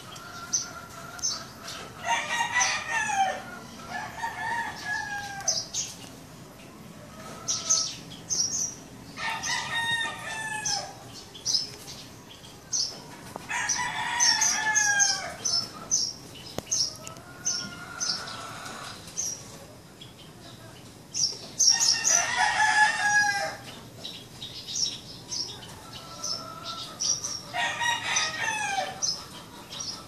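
Roosters crowing, about five long crows a few seconds apart, each one to two seconds with a falling end. Small birds chirp throughout in short high notes.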